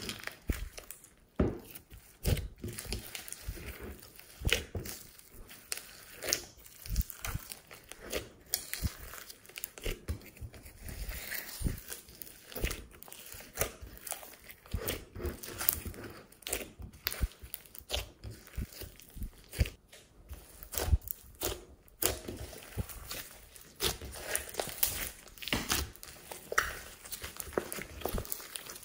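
Hands kneading, squeezing and pulling a large mass of slime mixed with small foam beads and glitter, giving a dense run of irregular squelching pops, crackles and clicks.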